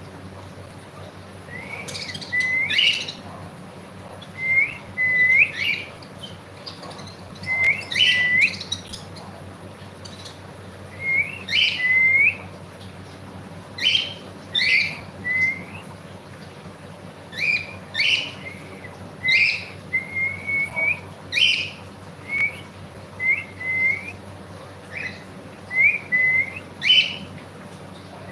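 Pet cockatiel calling in short, rising chirps, mostly in pairs or small clusters, repeated every second or two.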